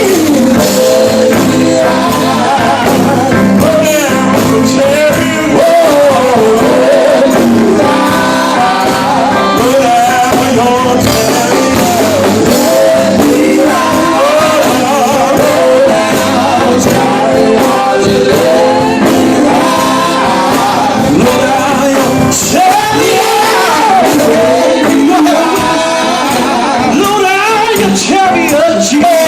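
Live gospel music: a group singing over a full band, with a lead voice whose lines slide up and down in pitch and break into shouts.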